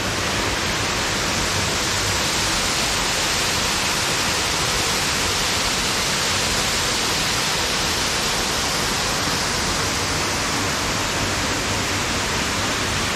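Small waterfall pouring into a pool: a steady, unbroken rush of falling water.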